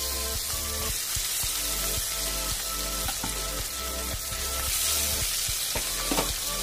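Fish steaks, marinated in salt, turmeric and oil, shallow-frying in hot oil in a kadai: a steady sizzle. Background music plays over it.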